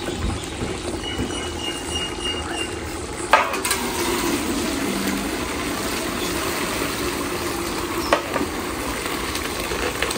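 Half-cooked basmati rice and its hot water poured from an aluminium pot into a perforated aluminium colander, the water splashing and draining steadily. A sharp metal knock comes about three seconds in, and another shorter one near eight seconds.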